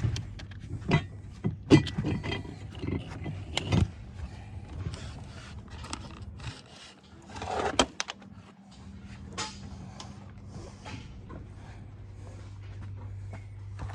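Metal clicks and knocks of hand tools and parts as the last sticky mounting nuts come off and the old master cylinder is worked free, busiest in the first few seconds, with a scraping sound about halfway.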